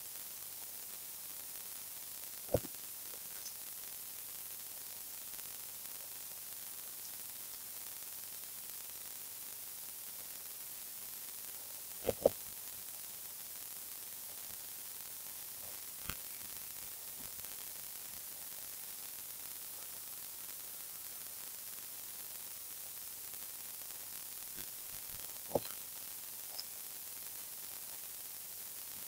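Steady microphone hiss with a few short, sharp computer mouse clicks scattered through it, including a quick double click near the middle.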